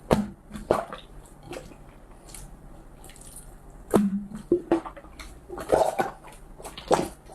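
Slime being squeezed and pressed by hand: irregular wet squishes and sharp sticky clicks, sparse in the middle and coming thick and fast over the last few seconds.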